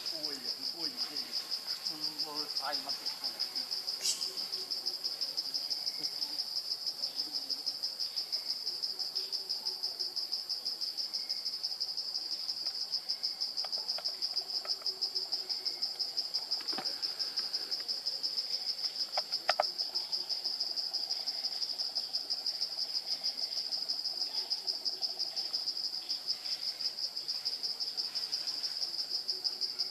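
Insect chorus: a steady, high, rapidly pulsing buzz, with a few faint clicks along the way, the sharpest about two-thirds of the way through.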